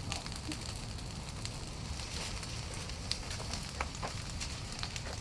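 Large outdoor fire burning, with irregular sharp crackles and pops over a steady low rumble.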